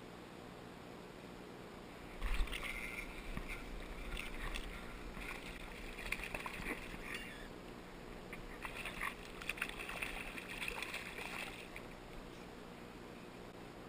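Water sloshing and splashing in irregular bursts, starting about two seconds in and dying away near the end, with a low rumble under it.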